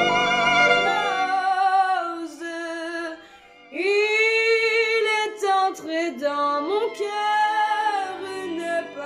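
Music with a woman singing long held notes with vibrato and sliding pitch over instrumental accompaniment; a brief dip about three seconds in before a strong new phrase begins.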